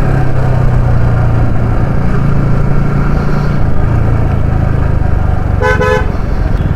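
Motorcycle engine, a Yamaha R15's single-cylinder, running steadily under a ride with road and wind noise. A vehicle horn beeps twice in quick succession near the end.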